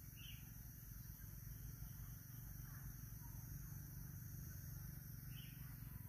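Faint wild bird calls: two short high notes, one near the start and one near the end, over a steady low hum.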